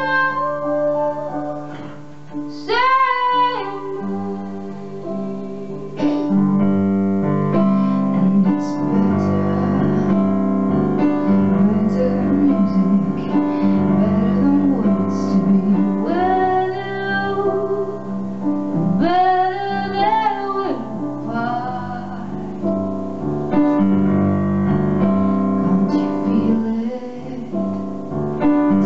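A woman singing a slow song while accompanying herself on a Yamaha digital stage piano, with sustained piano chords under her sung phrases. The playing thins out for a few seconds early on, then grows fuller about six seconds in.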